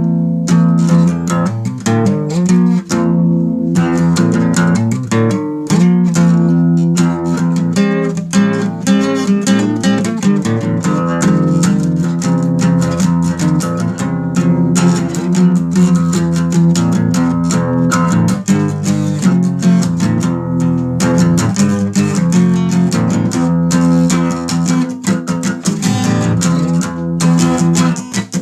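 Instrumental guitar music: rapidly picked notes over held low notes, running without a break.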